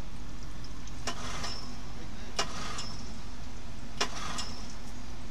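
Mercury 25 outboard engine running steadily with its lower unit in a drum of water, a test run that shows the cooling water pumping after the impeller inspection. Three sharp metallic clicks with a brief ring stand out over it, about one, two and a half and four seconds in.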